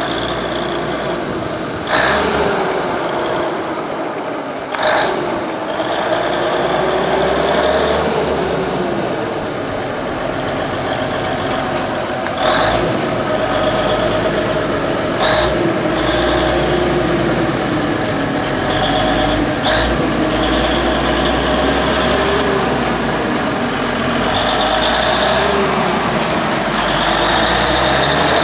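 Cummins 220 six-cylinder diesel in a vintage Atkinson truck chassis running under way, its speed rising and falling again and again as it is driven through the gears. A handful of sharp knocks stand out above it.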